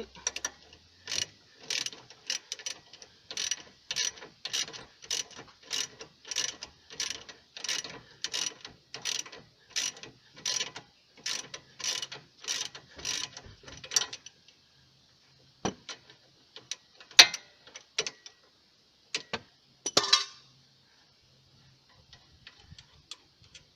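A ratchet wrench clicking in steady back-and-forth strokes, about two a second, undoing the 15 mm bolt at the bottom of a rear brake caliper. The strokes stop about fourteen seconds in, followed by a few scattered clicks and knocks.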